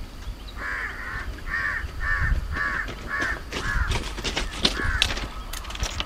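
A crow cawing about seven times in quick succession over a low rumble, with sharp clicks in the second half.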